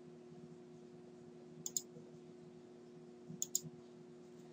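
Faint computer mouse clicks: two quick pairs of clicks about a second and a half apart, over a steady low hum.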